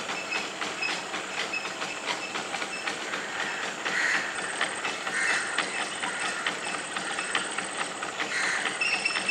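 Tropical insect chorus: dense, rapid clicking with a hiss above it, and short high chirps repeating about every half second, clearest near the end. A thin, steady, very high whine joins about halfway through.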